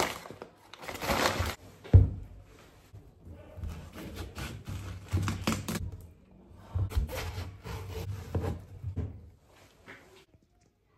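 Knocks and rustling of things being handled, with one sharp knock about two seconds in and a fainter stretch near the end.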